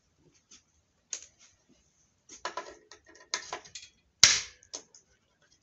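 Clicks and knocks of small hard objects being handled and set down on a wooden workbench, with a cluster of them a little past two seconds in and one sharp, loudest knock about four seconds in.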